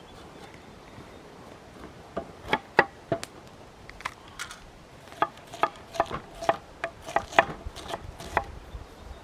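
Knife chopping vegetables: a few cuts about two seconds in, then a steadier run of about three chops a second from about five seconds in.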